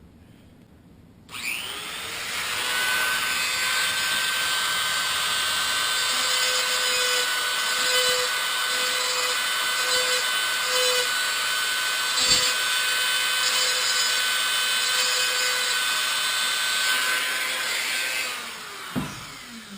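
Dremel rotary tool drilling a small hole in a slot-car body for a tail-light LED. It spins up about a second in, holds a steady high whine, and winds down near the end.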